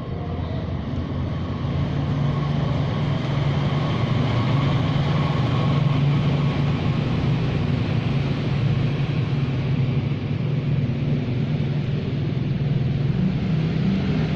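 Motorcycle engine running steadily with an even low hum, getting slightly louder about two seconds in.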